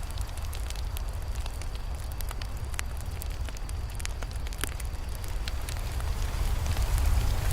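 Campfire burning, with a steady low rumble of flames and frequent irregular pops and crackles of the wood.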